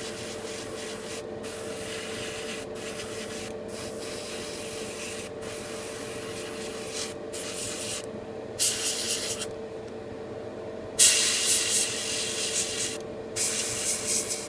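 Airbrush spraying gunmetal metallic paint: a steady hiss of air and paint that cuts out briefly each time the trigger is released between passes, with longer breaks around eight and ten seconds in and stronger bursts in the last few seconds. A steady hum runs underneath.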